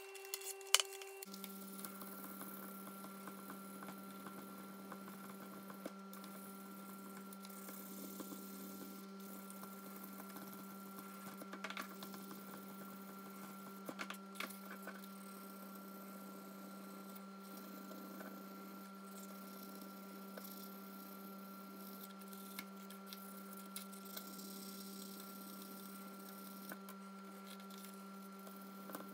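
Steady low electrical hum that starts about a second in, with faint scattered clicks and rubbing from hands working on a metal screwdriver shaft.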